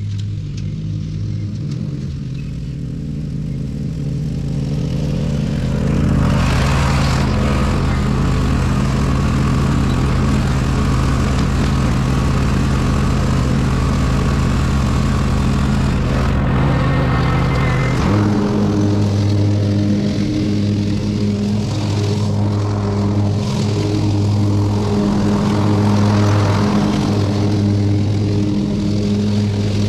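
Ride-on lawn mower engine running steadily while mowing. It grows louder about six seconds in, and its note shifts about eighteen seconds in.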